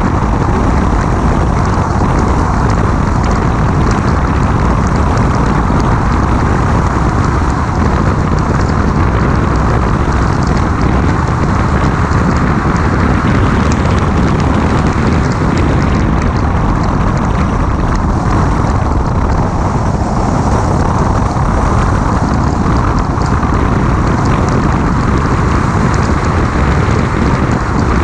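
Steady, loud rush of wind and road noise from a 2006 Mini Cooper S driving at speed, picked up by a camera microphone mounted outside the car, with heavy low wind buffeting on the microphone.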